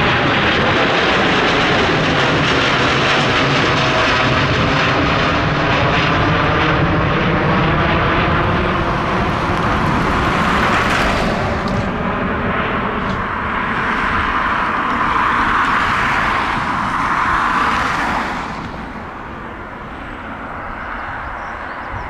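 Boeing 787-9's twin turbofan engines at takeoff thrust as the airliner climbs away, a dense steady jet noise that drops noticeably about eighteen seconds in as it recedes.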